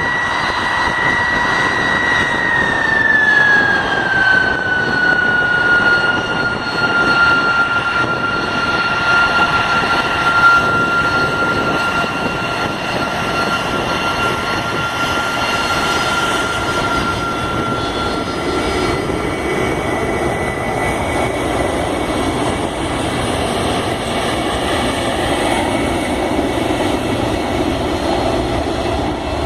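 GE CF6-50 turbofan engines of a McDonnell Douglas DC-10-30 running loud. A high whine drops in pitch a few seconds in, holds, and fades out about two-thirds of the way through, leaving a steady jet roar.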